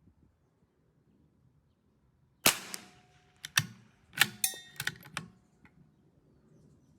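A single shot from a CZ 457 AT-ONE .22 LR bolt-action rifle firing Wolf Match Extra, then a quick run of metallic clicks and knocks as the bolt is worked to eject the case and chamber the next round.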